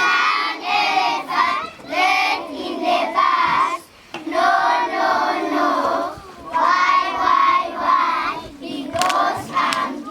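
A group of children singing together in phrases with short breaks between them.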